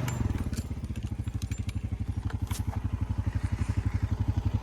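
Honda Rubicon ATV's single-cylinder four-stroke engine running steadily at low revs, an even putter of about a dozen beats a second.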